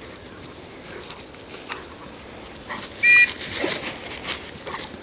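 A short, loud, high-pitched call about three seconds in. It is followed by about a second and a half of rustling crackles as a German wirehaired pointer runs close past through thick grass and weeds.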